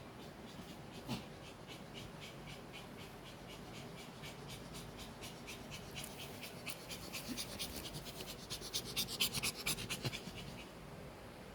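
Pomeranian puppies panting in quick, even puffs, about four a second, chugging like a train: a stress sound as they look for their mother. The puffing grows louder and faster in the second half, then dies away near the end.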